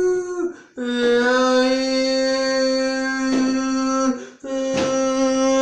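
A man singing a slow ballad unaccompanied, holding long steady notes, with a brief catch of breath about half a second in and again about four seconds in.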